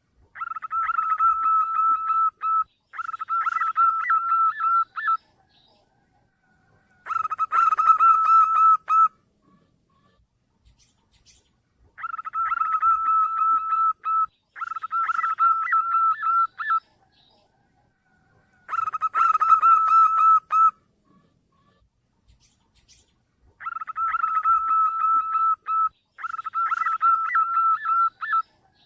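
Zebra dove (perkutut) singing: eight phrases of rapid staccato coos, each about two seconds long, some in back-to-back pairs, separated by short silences.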